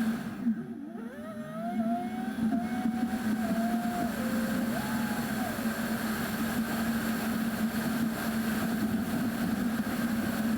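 A vehicle engine running, its pitch rising and falling over a steady hum.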